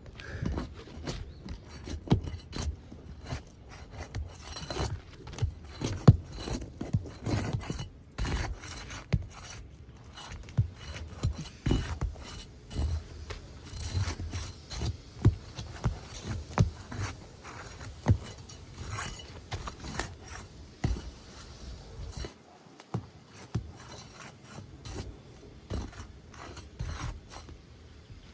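Scraping and prying at three-tab asphalt roof shingles to work a damaged shingle loose: irregular rasping scrapes and small knocks.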